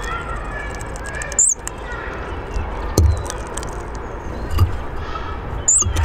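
Hawfinch giving short, sharp, very high "tzik" calls, twice, about four seconds apart, over fainter twittering of other birds. Two dull knocks sound in between.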